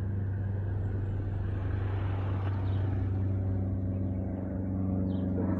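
Steady low hum with a passing road vehicle whose noise swells about two seconds in and then fades.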